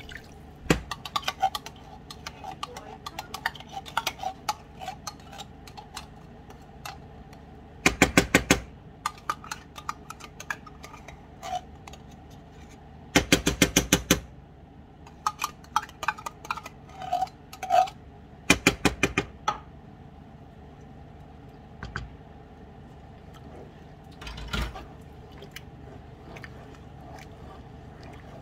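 A metal utensil scraping and knocking tomato paste out of a tin can into a skillet, with scattered clinks and three rapid rattling bursts of metal on metal.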